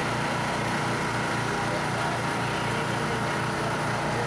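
A small engine running steadily at an even speed, with a fast regular low pulsing.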